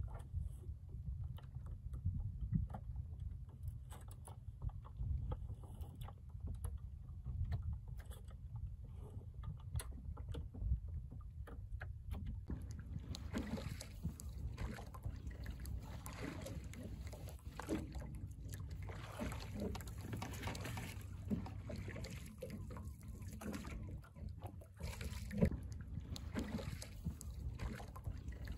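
Oars working a small wooden sail-and-oar rowing boat (a Chesapeake Light Craft Guider): light clicks and knocks from the oars, then water splashing and lapping, which grows louder about halfway through, over a steady low rumble.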